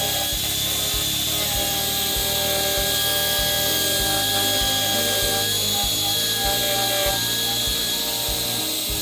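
Wood lathe running while a turning tool cuts a wooden bowl, with a steady hissing scrape, under background music with a regular beat.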